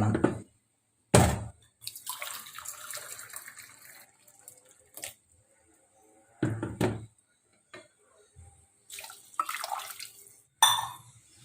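Measured glasses of water being poured into a pot of rice and masala for biryani, in a couple of short pours, with a few knocks of the glass and pot in between.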